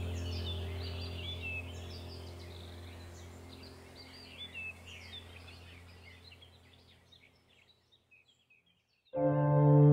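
Background soundtrack of birds chirping over a low sustained drone, fading out over about six seconds, then a short silence; a soft piano piece starts suddenly near the end.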